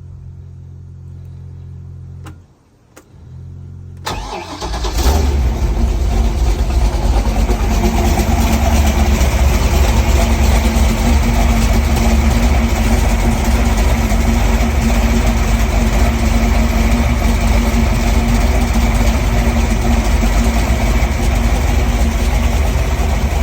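A 572 cubic-inch big-block V8 marine engine starts about four seconds in, after a low hum and a brief lull, then runs loud and steady with a deep rumble.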